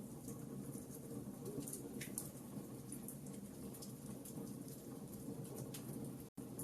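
Wood fire crackling in a fireplace: a steady low rustle of burning with frequent small pops and snaps. The sound drops out for an instant near the end.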